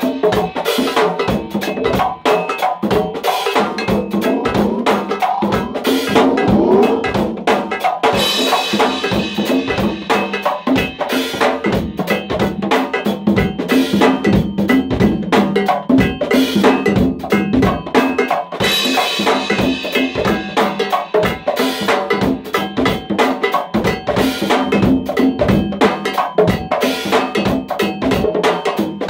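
Congas hand-drummed in a fast go-go rhythm, dense rapid strikes, over a steady percussion beat with a cowbell-like ring.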